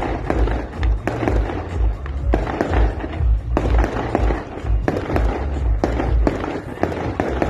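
Fireworks exploding in a rapid run of bangs and crackles, with music playing underneath and its deep low beat pulsing through.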